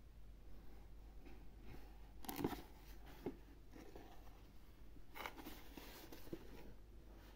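Faint rustling and scraping of a cardboard toy box being handled and turned in the hands, with two brief louder scuffs, about two and a half and five seconds in.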